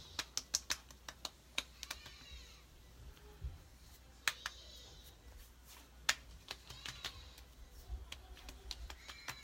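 Palms patting and lightly slapping the skin of the face, pressing a skincare lotion in: a quick run of sharp pats in the first second, then scattered single pats.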